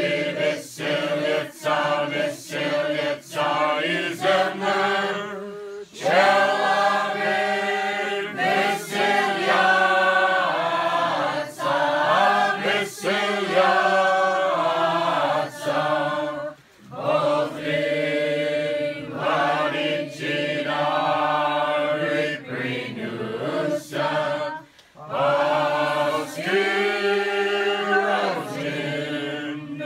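A choir singing a slow chant in several parts, in long held phrases with short breaks between them.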